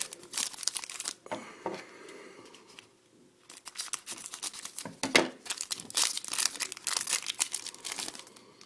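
Foil wrapper of a hockey card pack crinkling and tearing as it is opened and handled. There is about a second of crackle, a quieter lull about two seconds in, then several seconds of dense crinkling.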